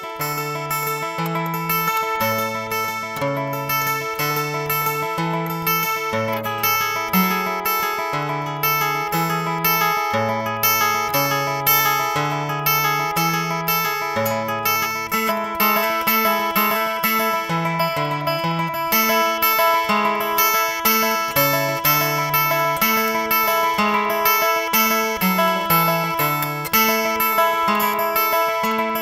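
Acoustic guitar playing an instrumental piece: picked notes ringing continuously over a bass line that steps from note to note.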